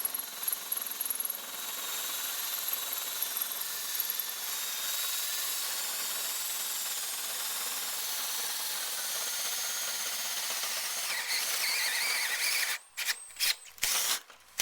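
An electric power tool working on steel: a steady rasping grind with a faint whine, broken into short on-off bursts near the end.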